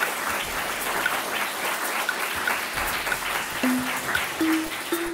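Audience applauding, a steady patter of many hands clapping. About three and a half seconds in, a short piece of music comes in over it, its notes stepping upward in pitch.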